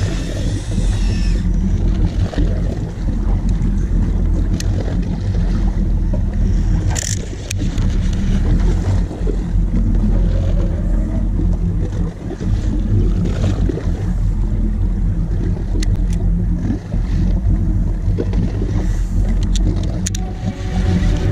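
Boat engine idling as a steady low rumble, with a few sharp clicks. Music comes in near the end.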